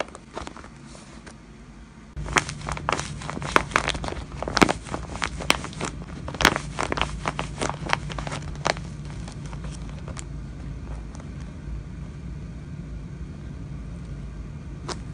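Tape-wrapped paper squishy stuffed with cotton wool being squeezed by hand: crinkly crackling of the tape and paper, dense from about two seconds in to about nine seconds, then only a few crackles. A low steady hum runs underneath from about two seconds in.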